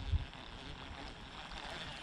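Faint steady background hiss, with a brief low rumble at the very start.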